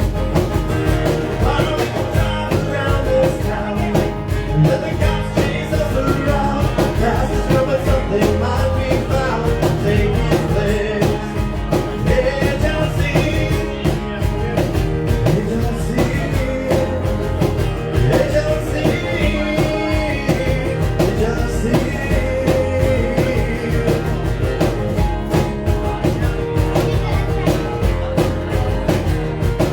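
Live rock band playing loud and steady, with electric guitars, bass and drum kit.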